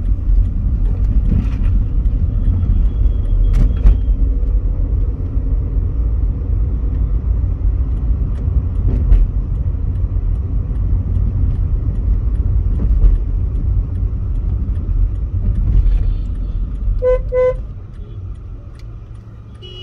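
Steady road and engine rumble inside a moving Volkswagen Polo GT's cabin. Near the end a vehicle horn toots twice in quick succession, and then the rumble drops noticeably quieter.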